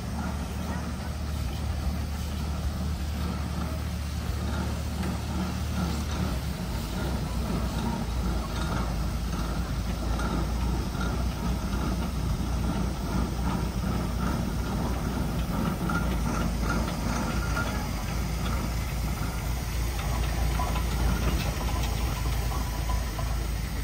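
Steam traction engine running as it drives slowly along a gravel road, a steady mechanical clatter.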